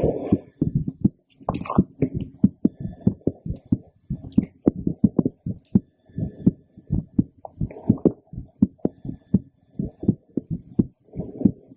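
A woman's heartbeat heard through a stethoscope: a steady run of soft lub-dub thumps.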